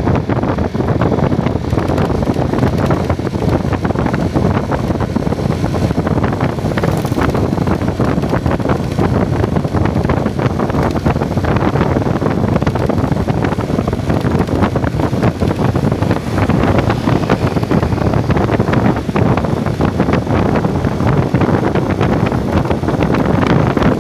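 Heavy wind buffeting the microphone, steady and loud, with a vehicle running underneath while travelling.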